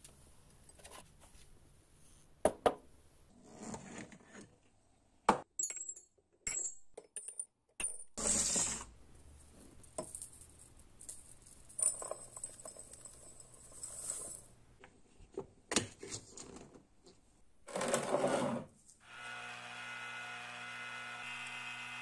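Glass jars and small brass lighter parts clinking and clattering as they are handled, with sand pouring into a glass jar with a hiss. Near the end a small electric rock tumbler starts and runs with a steady hum, the jar turning with sand inside to scour the parts.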